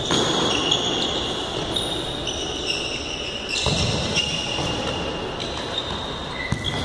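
Indoor futsal being played: the ball is kicked and bounces on the hard court floor in several sharp knocks. Players' shoes give off high squeaks on the court throughout.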